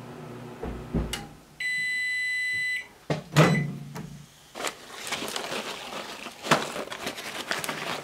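Nostalgia RMO4AQ retro microwave ending its popcorn cycle: its running hum stops about a second in, then one long beep marks the end of cooking. About a second later the door latch clunks open, followed by the crinkle and rustle of the paper popcorn bag being pulled out and opened.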